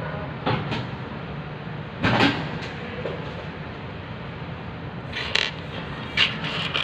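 Several short knocks and clatters, the loudest about two seconds in, over a steady low hum.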